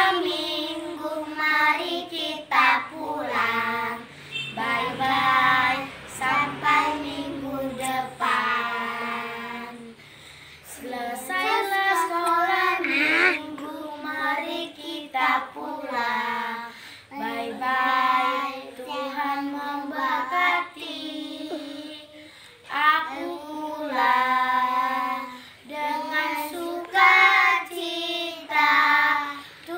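Four young girls singing a Sunday school song together, in phrases with short breaks between them.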